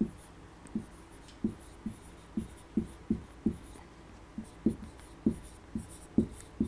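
Marker writing on a whiteboard: short knocks about twice a second as the pen strokes and taps the board, with faint high squeaks and scratches between them.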